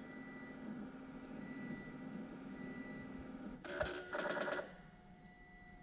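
A faint steady hum, then, about three and a half seconds in, a short two-part electric buzz from the Triumph Rocket III's idle speed control stepper motor as it is driven at the end of the idle speed control adjustment.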